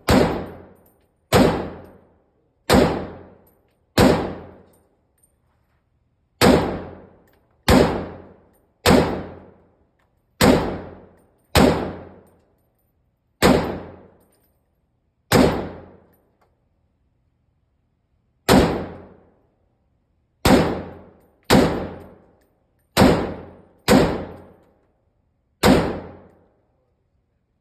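.308 AR-style semi-automatic rifle firing single shots at an uneven pace, about seventeen in all, each with a short echoing tail. Some come in quick pairs about a second apart, others several seconds apart.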